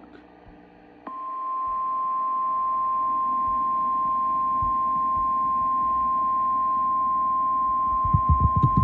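NOAA Weather Radio warning alarm tone: a single steady high tone that starts about a second in and holds unbroken. It signals that a severe thunderstorm warning is about to be broadcast. Faint low thumps come in under it near the end.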